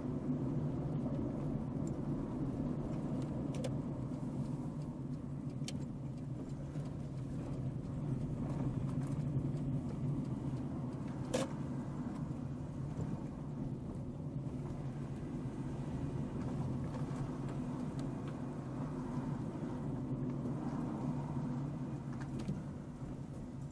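Car driving along a paved street: a steady low hum of engine and road noise. A few light clicks or rattles cut through it, the sharpest about halfway through.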